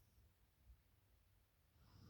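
Near silence in the pause between a sleeping woman's snores, with the faint start of her next breath near the end.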